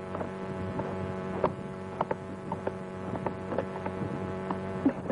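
Steady low hum, with scattered short clicks and chirps over it.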